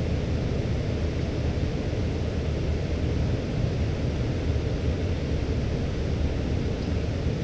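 Steady rushing of river rapids, a constant deep roar of water with no let-up.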